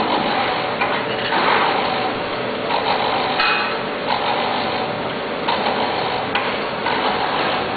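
YD-11 tea bag packing machine running, making string-and-tag tea bags with a steady mechanical clatter of many quick clicks.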